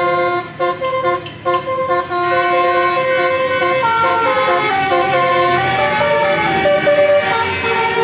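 Basuri telolet horn on a coach bus playing a melody: a run of steady multi-tone notes stepping up and down in pitch, with short breaks in the first couple of seconds and then unbroken. A vehicle engine rumbles underneath.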